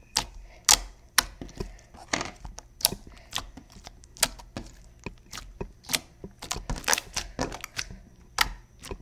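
Glossy, wet-textured slime being squished and worked in the hands, giving irregular sharp clicks and pops, a few a second.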